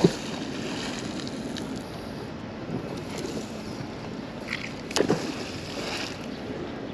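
Magnet-fishing rope being hauled in by hand over a wooden dock, with wind noise on the microphone. A sharp knock right at the start and another about five seconds in stand out as the loudest sounds.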